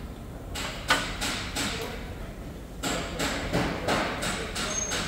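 Hammer blows on the car's front-end metalwork, about three a second, in two runs with a short pause about two seconds in; each strike rings slightly.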